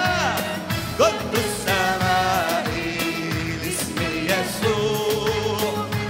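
Arabic Christian worship song performed live: a man singing the melody over keyboard accompaniment with a steady beat.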